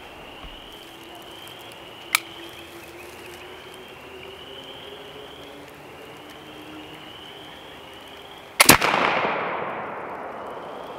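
A .54-calibre Kibler Woodsrunner flintlock rifle fires one shot near the end, its report rolling away over about two seconds. A single sharp click comes about two seconds in.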